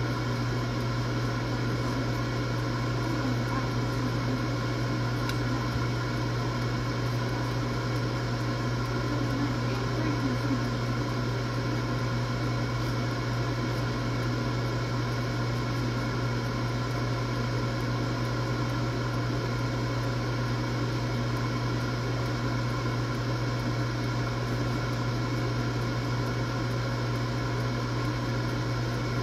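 Air fryer running mid-cook: a steady, unchanging fan hum with a strong low drone.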